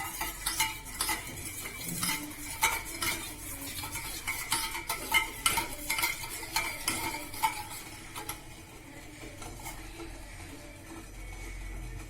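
Utensil stirring milk and cocoa in a bowl set in a double boiler, clinking and scraping against the bowl many times. The clinks thin out after about eight seconds, leaving a fainter, steadier noise.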